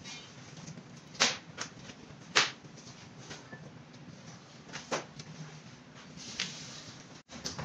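Cable ties being snipped with hand cutters: two loud, sharp snaps a little over a second apart, then a few softer clicks, over light rustling of foam packaging.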